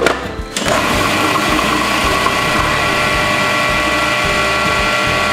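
After a short plastic clatter, a countertop food processor's motor starts about half a second in and runs steadily with a whine, chopping chickpeas, garlic and tahini into a coarse paste.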